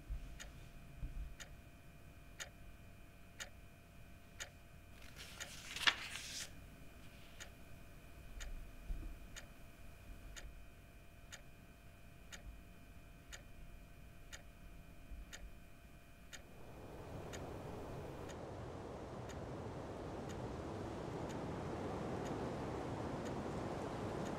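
Clock ticking at a steady, even pace over a faint drone of a few held tones. About six seconds in a brief rushing swell passes; about two-thirds of the way through the drone stops and a steady hiss rises under the continuing ticks.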